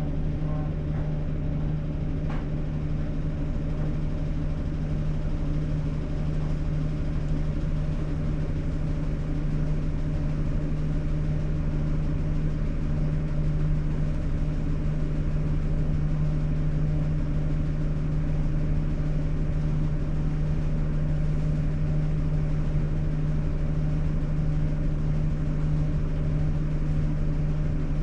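Sharp AY-J40S-W air conditioner running with a steady low droning hum, one strong tone and several fainter ones above it. This is the abnormal noise the unit has made since purchase, which repeated repairs, including one to its frequency fault, have not cured.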